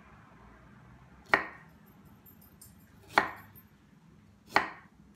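A kitchen knife cutting through a fresh ginger root and striking a wooden cutting board, three separate chops about a second and a half apart.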